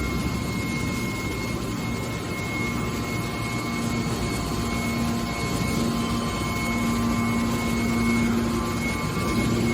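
Hydraulic baler running: a steady machine hum with a few constant high whines, its low hum growing stronger about four seconds in.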